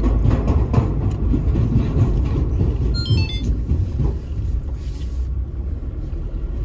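Diesel car driving on the road: steady engine and road rumble, with a brief run of high chirps about three seconds in.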